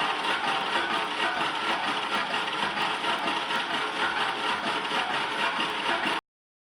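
Metal lathe running with a steady mechanical noise while turning a 245 mm steel pipe. The sound cuts off abruptly to silence a little past six seconds in.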